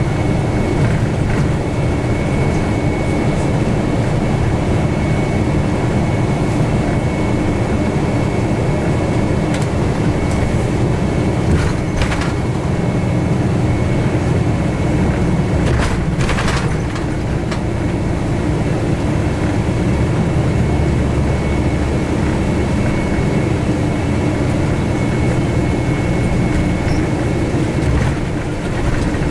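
Bus in motion, heard from inside the cabin: a steady engine and road rumble with a faint steady whine. A short clatter comes about twelve seconds in and another about four seconds later.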